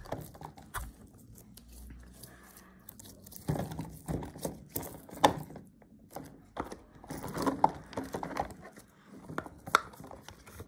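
Fidget toys being handled on a wooden table: a squishy stress ball squeezed and turned, then a silicone pop-it pressed, giving irregular clicks, taps and crinkly rubbing.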